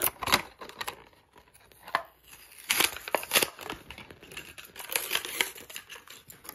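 Hot Wheels die-cast car's plastic and cardboard packaging being torn and crinkled open by hand: irregular sharp crackles and short tearing sounds, the loudest about three seconds in.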